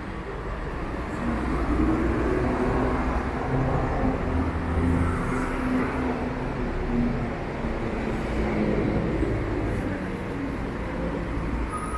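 City street traffic: motor vehicles running and passing with a steady low rumble. One engine's steady tone stands out from about a second in until about seven seconds in.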